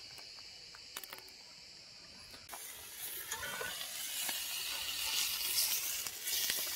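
Meat searing in a hot pan: a sizzle that starts suddenly about two and a half seconds in and grows louder, with a couple of light clicks before it.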